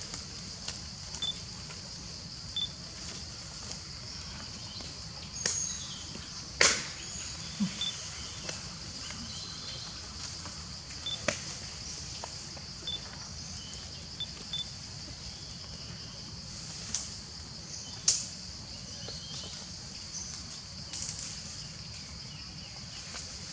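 Steady high-pitched drone of insects in the forest, with a handful of sharp clicks and snaps, the loudest about six and eighteen seconds in, and a few brief high chirps.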